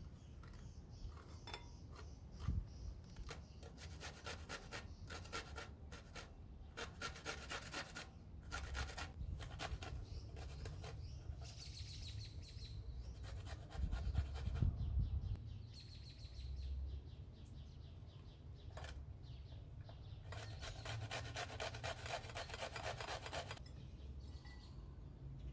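Carrot grated on a stainless steel box grater: runs of quick rasping strokes, broken by pauses and a few low knocks.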